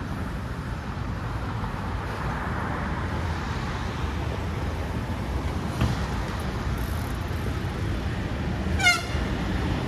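Steady city traffic rumble from a nearby road, with a brief knock about six seconds in and a short, quickly falling high chirp near the end.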